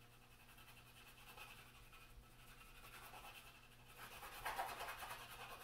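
Stockmar beeswax stick crayon scratching back and forth on paper in quick strokes, faint at first and louder from about four seconds in.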